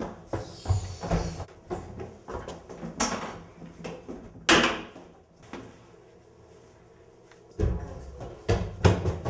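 A run of knocks, thumps and bangs from restroom doors and stall doors being handled and hit. There are two short rushing noises about three and four and a half seconds in, a quieter stretch, then more thumps near the end.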